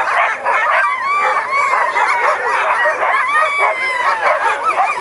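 Many harnessed sled dogs barking and yipping at once: a dense, unbroken chorus of overlapping high yelps.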